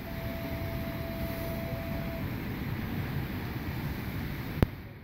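Wind buffeting the microphone over the wash of small Caspian Sea waves breaking on a sandy shore. A thin steady tone sounds for about the first two seconds, and a single sharp click comes near the end.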